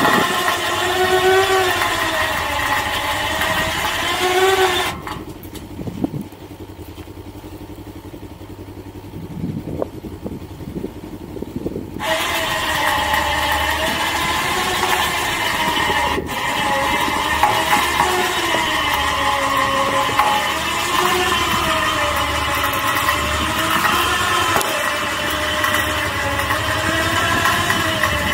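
Bravex 12-volt electric winch motor whining under load as it reels in its line and pulls a UTV up a ramp, the pitch sagging and recovering in slow waves. It stops about five seconds in and starts again some seven seconds later.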